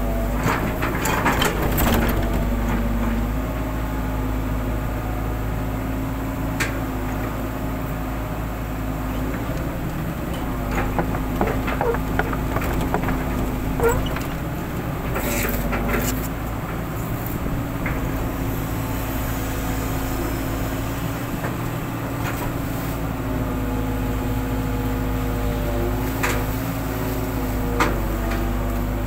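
Hitachi long-arm excavator's diesel engine and hydraulics running steadily under working load, heard from the cab, the pitch dipping and rising slightly at times as the boom and bucket move. Scattered short knocks and scrapes from the bucket working soil come through over it.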